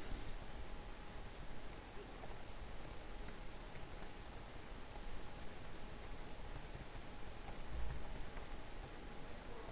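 Faint clicking of computer keyboard keys as code is typed, scattered light ticks over a low steady hiss.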